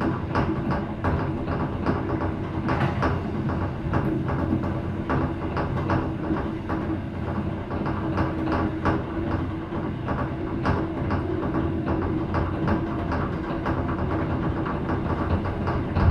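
Train running along the track: its wheels keep up a steady clicking over the rails above a constant low engine drone.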